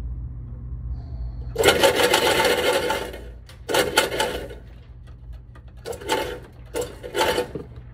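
Shooting-range target carrier motor running in four runs as the lane switch is pressed: one long run of about a second and a half, then three short ones, with a thin steady whine in each.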